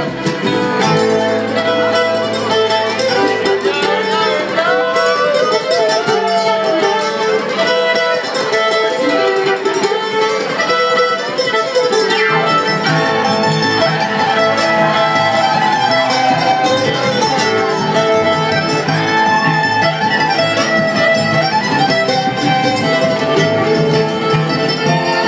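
Live bluegrass string band playing an instrumental passage: fiddle carrying a sliding melody over mandolin and strummed acoustic guitar.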